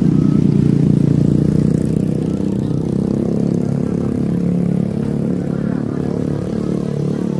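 A motor vehicle's engine running steadily and close, easing off slightly after about two seconds.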